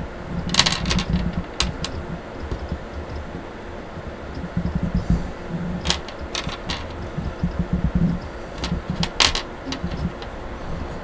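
Small plastic parts of a Nendoroid figure clicking and tapping as they are handled and fitted together. There are about eight sharp clicks in loose clusters, over a low rumble of handling noise right at the microphone.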